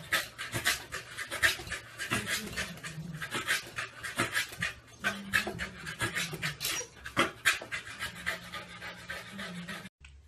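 A dog panting quickly, about three or four breaths a second, stopping abruptly near the end.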